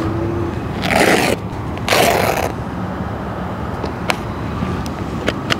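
Canvas knife roll being unfolded and its flaps opened: two brief rustling swishes of heavy fabric about a second apart, then a couple of light clicks.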